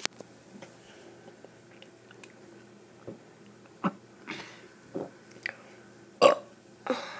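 A person's mouth sounds while drinking: scattered short swallows, gulps and lip smacks, the loudest about six seconds in.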